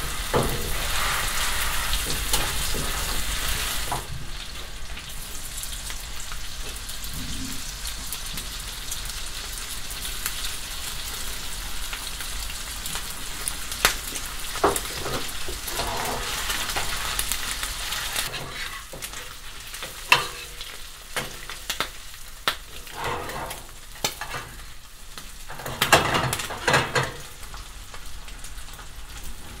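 Isaki (chicken grunt) fillets and bacon sizzling in hot oil in a frying pan. The sizzle is loudest for the first few seconds, while the fillets are pressed skin-side down with a slotted spatula to stop the skin shrinking and the fish curling. Several sharp clicks come over the second half.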